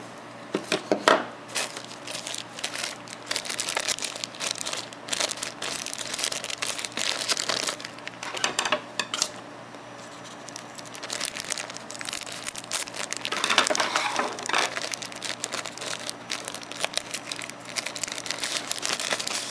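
Plastic packaging bag crinkling and rustling as it is handled and cut open with scissors, with scattered clicks and taps from handling.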